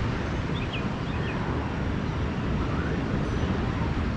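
Ocean waves rolling in on the beach, a steady noise heaviest in the low range. A few faint, short high chirps come about half a second to a second in.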